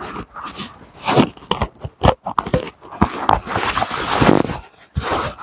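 A tight life jacket being pulled on and fastened: irregular rustling and crackling of its nylon shell and foam, with a few sharp clicks from its straps and buckles.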